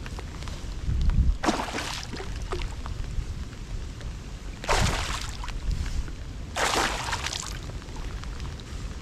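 Water splashing and sloshing against a small boat in three separate swishes a couple of seconds apart, over a low wind rumble on the microphone.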